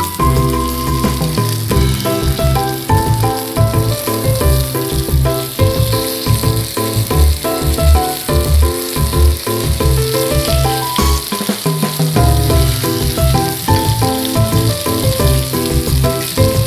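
Food sizzling as it fries in a pan, a steady hiss under background music with a melody and a bass line.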